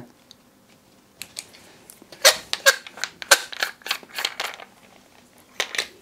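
Small hand-held aluminium flashlight being opened and handled: a string of sharp clicks and knocks as the tail cap comes off and the 18650 cell is slid out of the tube.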